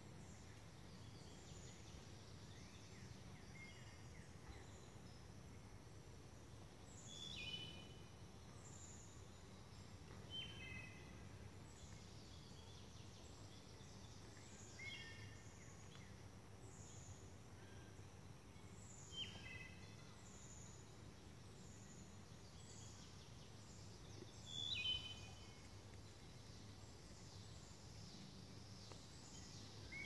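Faint woodland birdsong: a short phrase of three or four stepped, falling notes repeated about every four to five seconds, with thin high chirps scattered between, over a faint steady low rumble.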